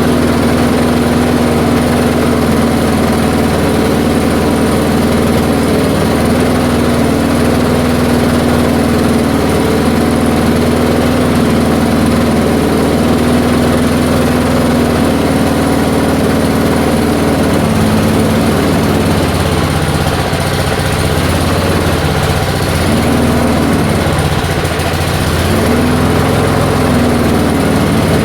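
1978 Allis-Chalmers 19-inch push mower's small engine running steadily. Its pitch dips and wavers for a few seconds about two-thirds of the way through. The owner suspects an old, bad diaphragm in the carburetor.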